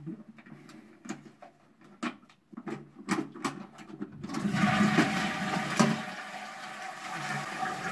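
Clicks and knocks of plastic parts inside a Kale concealed cistern being handled, then about four seconds in a steady rush of water as the cistern flushes.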